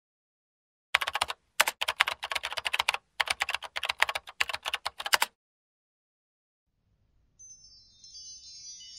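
Rapid keyboard typing clicks in three runs with short gaps, starting about a second in and stopping a little past five seconds. Near the end a faint high shimmering chime comes in.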